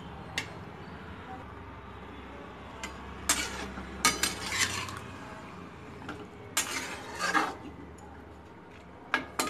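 Metal ladle scraping and clinking against a kadai while a potato and paneer curry is stirred, in several short bursts a second or two apart, over a low steady hum.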